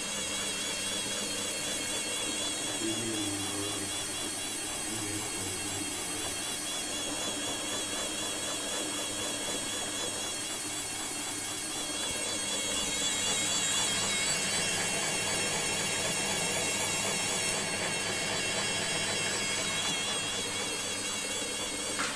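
Samsung 7 kg washing machine's brushed motor running on freshly replaced carbon brushes, turning the drum through its belt and pulley. It makes a steady whine and hum that wavers slightly in pitch.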